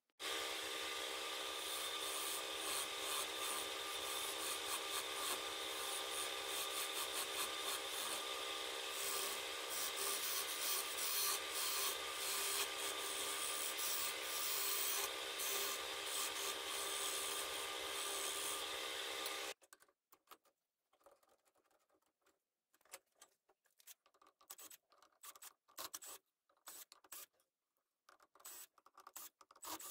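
Wood lathe running with a turning tool cutting a spinning segmented wood blank: a steady motor hum under a rough, continuous scraping of the tool on the wood. It stops abruptly about two-thirds of the way through, leaving only faint scattered clicks.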